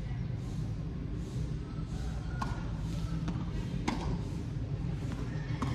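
Tennis ball being struck and bouncing in a rally: four sharp pops, the loudest near the middle, over a steady low rumble.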